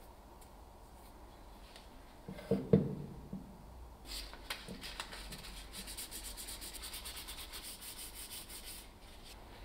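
The red-painted handle of a car jack set down on a wooden workbench with a knock and a short clatter, then sandpaper rubbed over it by hand in quick, even strokes.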